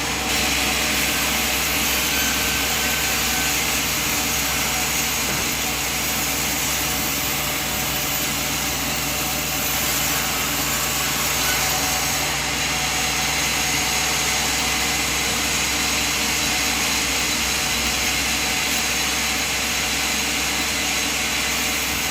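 Sawmill machine running steadily: a constant mechanical drone with a dense hiss over it, unbroken throughout.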